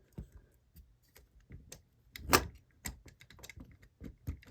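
Irregular light clicks and taps, with one louder knock about two and a half seconds in.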